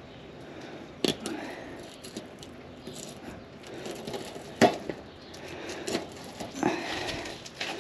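A knife slicing through a sea robin while filleting it along the back, with soft scraping of blade and fish on cardboard and a few sharp clicks and knocks, the loudest a little past halfway.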